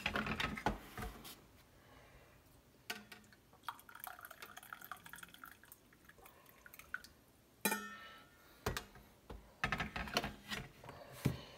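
Coffee pouring from a stainless thermal carafe into a mug for several seconds in the middle, framed by clinks and knocks as the carafe is lifted out of the drip coffee maker and set back in.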